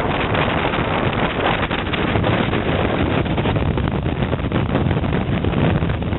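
Wind rushing and buffeting over a microphone carried on a motorcycle at road speed, a steady loud rush with rapid gusty flutter.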